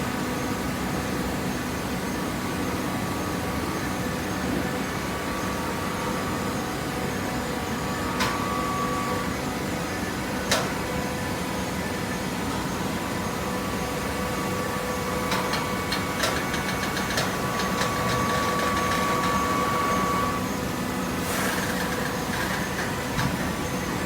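Hydraulic baling press running with a steady machine hum, broken by a few sharp clicks and a quick run of clicking near the middle, then a short hiss near the end.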